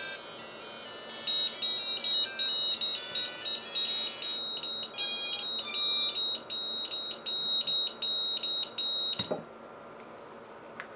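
Mini quad's ESCs playing their power-up tones through the motors: a quick, high-pitched melody of changing notes, then a run of short beeps about three a second. The power is unplugged with a click about nine seconds in, and the tones stop.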